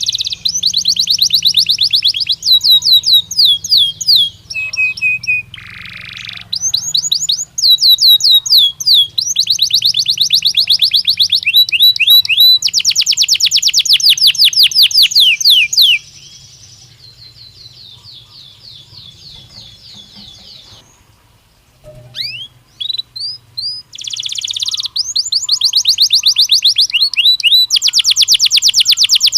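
Belgian canary singing in long, loud runs of rapid trills, each made of fast repeated down-sweeping notes. About halfway through the song drops to a softer, lower rolling passage, breaks off briefly, and then the loud trills return.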